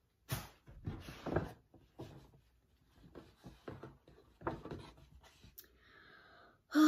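Paper gift packaging being handled: irregular short rustles and light taps as the box and its wrapping are moved about.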